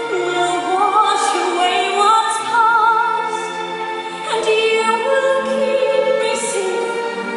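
Musical-theatre singing: a solo voice holding sustained, vibrato-laden lines over orchestral accompaniment.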